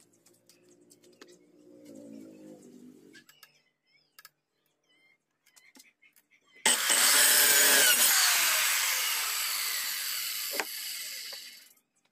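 Corded circular saw cutting through a short piece of wood, starting loud all at once, then its motor winding down with falling pitch and fading out near the end. One sharp click comes in as it slows.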